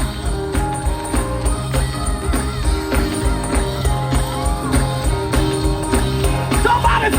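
Live gospel band music with a steady beat, a bass line and a shaking tambourine; a voice bends through sung runs in the second half.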